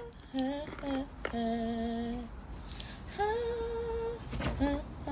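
A woman singing a slow melody in long held notes that step between a few pitches, with a few short sharp knocks.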